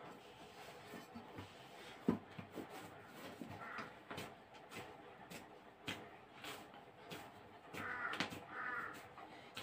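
A crow cawing, a short call about four seconds in and two more near the end, over soft squelches and clicks of dough being kneaded by hand in a steel bowl, with one sharp knock about two seconds in.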